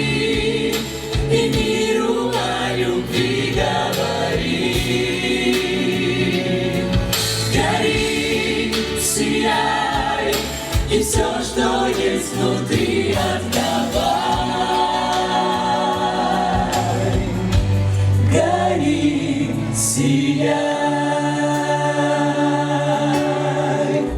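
A choir singing held chords that change every second or two, over a steady low accompaniment.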